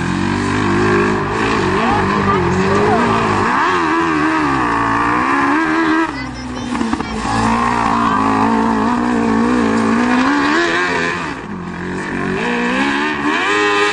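Engine of an apecross racing three-wheeler revving up and down as it drives the dirt track, its pitch rising and falling again and again.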